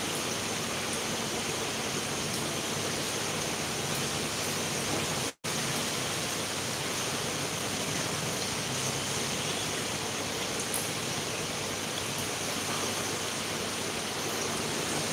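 A steady, even hiss, cut off completely for a split second about five seconds in.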